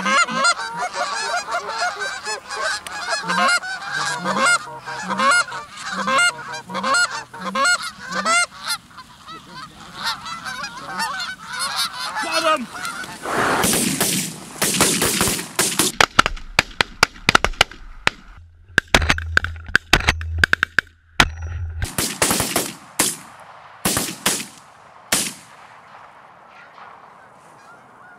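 Canada geese honking, many overlapping calls from a flock, thickest over the first several seconds. From about halfway through come loud, sharp shotgun bangs in quick clusters, several in a row, with calls between them.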